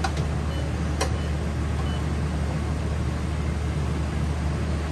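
Steady low machine hum with an even hiss, and one light click about a second in.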